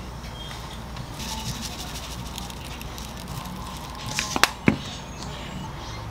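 Sesame grinder handled and shaken over a plate: light crackly ticking, then three sharp clicks about four seconds in. A low steady hum runs underneath.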